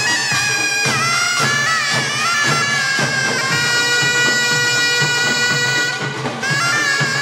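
Taepyeongso, the Korean double-reed shawm, playing a loud, reedy melody full of pitch bends and wavering over pungmul percussion. The shawm breaks off briefly about six seconds in, then comes back in.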